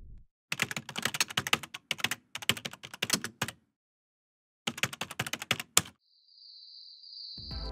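Rapid mechanical clicking in several runs of a second or so, with short silent gaps between them. A steady high-pitched tone follows near the end.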